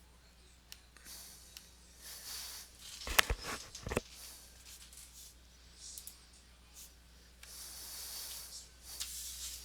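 Handling of card boxes and packaging on a table: rustling and crinkling, scattered clicks, and a cluster of knocks about three seconds in.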